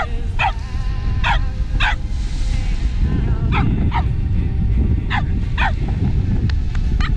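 A dog barking about eight times, some barks in quick pairs, over background music and a steady low rumble.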